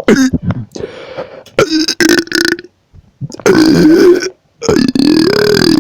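A person burping several times in a row: a short burp at the start, then longer pitched belches, the last two loud and about a second long each. He puts this run of burps down to a bad combination of snacks.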